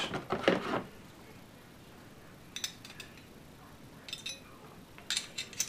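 Handling clicks of a magazine loader and a Ruger SR9 pistol magazine as the loader is fitted onto the magazine: a few short, light clicks and clinks in the second half.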